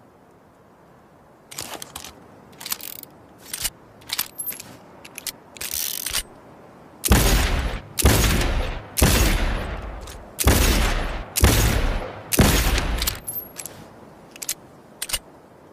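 Revolver sound effect: several short sharp clicks, then six loud gunshots about a second apart, each with a fading tail, then a few more clicks.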